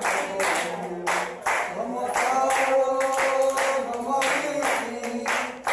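A group of women and children singing together unaccompanied and clapping their hands in a steady rhythm.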